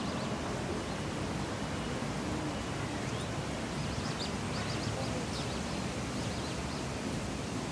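Steady outdoor background hiss with short, high bird chirps, clustered about three to five and a half seconds in.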